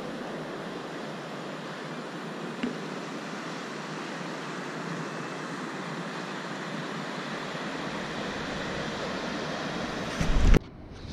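Ocean surf on a sandy beach, a steady rushing wash of waves. Just after ten seconds in, a loud gust of wind buffets the microphone and then cuts off suddenly.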